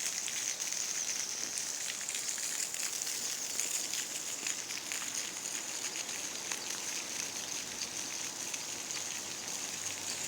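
Small waterfall splashing: a steady high hiss of falling water, with fine crackling spatter throughout.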